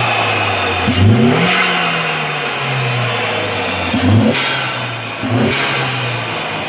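2015 2.3L EcoBoost turbocharged four-cylinder engine revved in repeated throttle blips, the pitch jumping up about a second in and again twice near the end, falling back between, with the turbocharger's whistle above the engine note.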